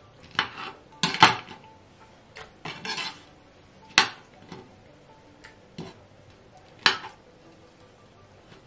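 Kitchen knife knocking against a glass cutting board while peeled tomatoes are chopped: irregular sharp clicks a second or two apart, a couple in quick pairs, with a short scrape about three seconds in.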